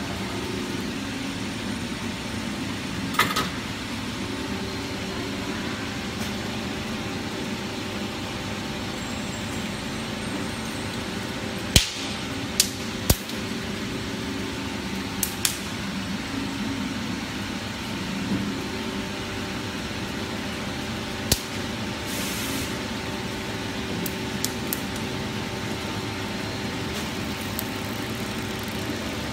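Two-roll silicone mixing mill running steadily, its motor and drive giving a continuous hum with a few held tones. A few sharp clicks stand out, about three seconds in, in a cluster around twelve to thirteen seconds, and near fifteen and twenty-one seconds.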